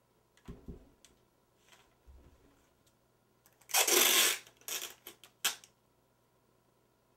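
Clear packing tape pulled off its roll in one long rip, then a few shorter pulls and tears. Before it come two dull knocks as the tube is handled.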